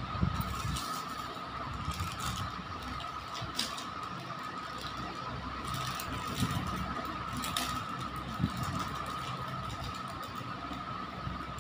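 Plastic jewellery packets being handled on a floor, with a few brief crinkles and clicks, over a steady humming tone and background noise.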